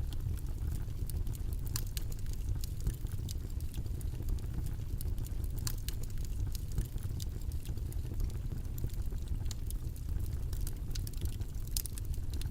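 Steady low rumbling background noise, like a white-noise track, with scattered small irregular clicks and ticks over it.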